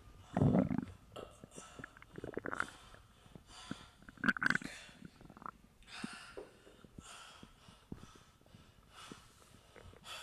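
Human stomach growling and gurgling in irregular bursts, the loudest about half a second in and more around two and a half and four and a half seconds, with small wet clicks between.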